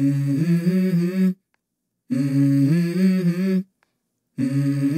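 A voice humming a short two-note phrase, about a second and a half long, repeated three times the same way with dead silence between.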